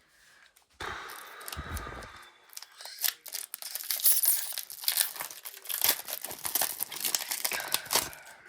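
A foil Pokémon card booster pack (Surging Sparks) being torn open by hand, its wrapper crinkling and rustling in dense, crackly bursts, with a low bump about two seconds in.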